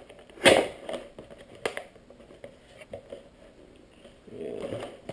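Hard plastic packaging being cut and pried open with a knife: a loud crackling snap about half a second in, a sharp click a second later, then a short stretch of crinkling and scraping near the end.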